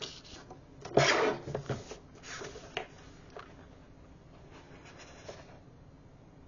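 A sheet of patterned scrapbook paper being slid and positioned by hand on a plastic paper trimmer: a tap and about a second of rustling about a second in, then a few light ticks and rubs.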